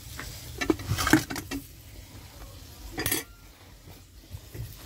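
Dishes and metal utensils clinking and clattering on a table. There is a run of sharp clinks in the first second and a half, the loudest about a second in, then one more ringing metal clatter about three seconds in.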